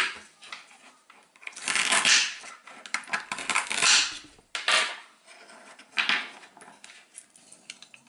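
Toy velcro banana being cut apart with a toy knife: several short rasps of velcro tearing, with wooden pieces knocking and clacking on a wooden cutting board between them.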